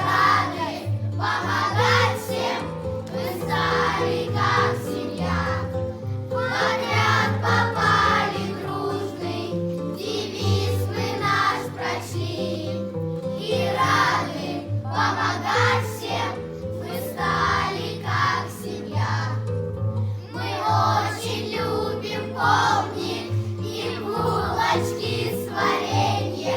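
A group of children singing a song in unison over a steady instrumental accompaniment.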